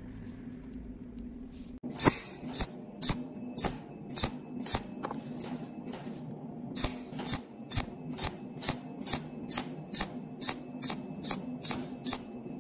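Cold welding machine (pulsed argon-arc spot welder) firing spot welds on a steel nut, a sharp snap with each pulse, about two a second, pausing briefly in the middle. A steady low hum runs underneath.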